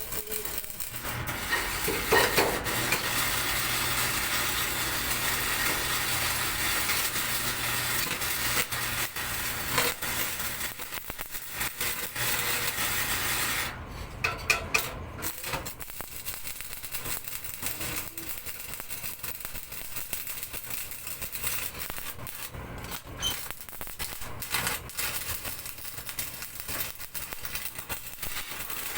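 Electric arc welding: a steady crackling hiss for about twelve seconds that cuts off abruptly, followed by a few sharp metallic clinks and a quieter, irregular crackle.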